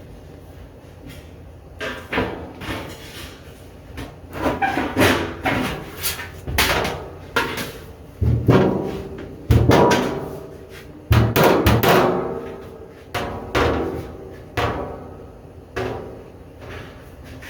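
Irregular hammer blows on sheet metal, a dozen or so strikes each followed by a metallic ring, the heaviest near the middle.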